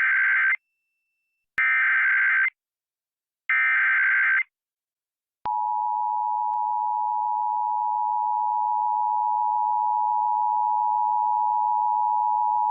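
Emergency Alert System tones on FM radio: three one-second bursts of warbling SAME digital header data, encoding a child abduction emergency alert, then about five seconds in the steady two-tone EAS attention signal (853 and 960 Hz) begins and holds.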